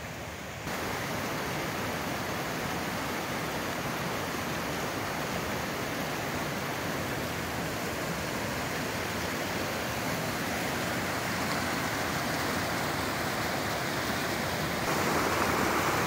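A rocky mountain stream rushing and splashing over stones in a steady wash of water noise, which gets louder shortly after the start and again near the end.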